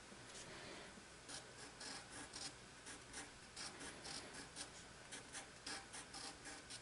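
Pencil scratching on sketchbook paper in quick, short strokes, about four a second, starting about a second in; faint.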